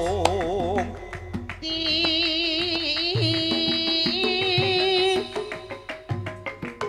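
Javanese gamelan music: struck metallophones with drum strokes, under a wavering high sung melody line with vibrato.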